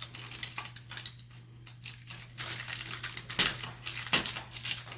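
Foil wrapper of a chocolate bar crinkling and crackling as it is peeled open, with two louder crackles about three and a half and four seconds in.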